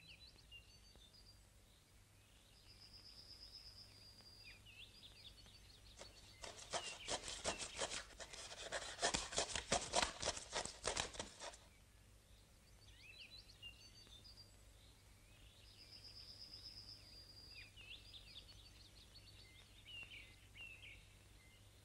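Bird chirps and short whistles scattered throughout as background ambience. In the middle a rapid run of clicks lasts about five seconds and is the loudest sound.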